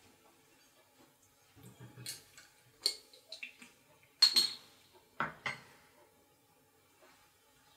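A metal bottle opener clinking against a glass beer bottle as the cap is pried off: a series of sharp clinks and clicks, the loudest a little over four seconds in.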